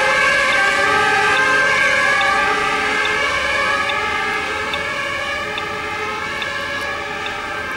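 Sirens of several fire engines sounding at once, many overlapping tones, fading slowly after a few seconds as the convoy drives away.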